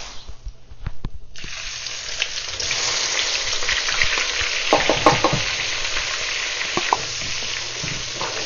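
Chopped onions hit hot canola oil in a metal pot and start sizzling loudly about a second in, then fry steadily while a spatula stirs them, knocking on the pot a few times around the middle.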